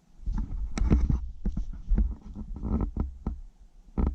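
Close handling noise from epoxy bond containers being picked up and knocked about: low thumps and rubbing with a string of irregular sharp clicks and knocks.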